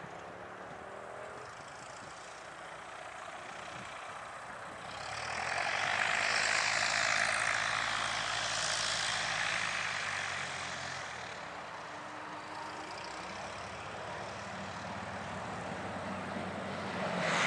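A Cessna 172R's four-cylinder Lycoming engine and propeller running at low power as the plane rolls out after landing and taxis past. The sound swells about five seconds in and eases off again after about ten seconds.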